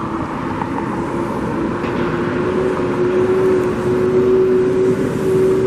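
Road vehicle noise: a steady hum from a motor vehicle that rises slowly in pitch, over a continuous road-noise rush.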